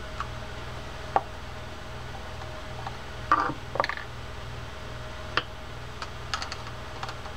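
Small clicks and taps of a screwdriver working the side-plate screws of a spinning reel, with a short clatter of handling near the middle, over a steady low background hum.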